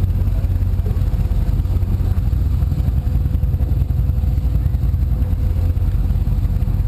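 Powerboat engine idling at slow marina speed: a steady, low rumble.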